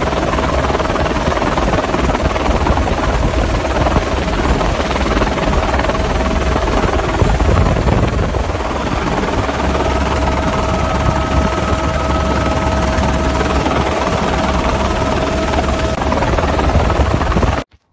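Helicopter engine and rotor noise heard from aboard: loud and steady, with a steady tone running through it, cutting off abruptly near the end.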